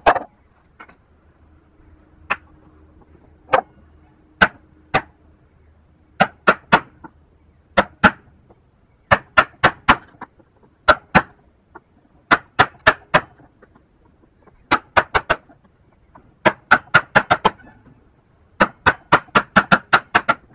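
Ball-peen hammer striking the handle of a wood chisel driven into a small hardwood block, chopping out the waste of a joint by hand. A few single sharp knocks at first, then quick runs of three to six blows with short pauses between.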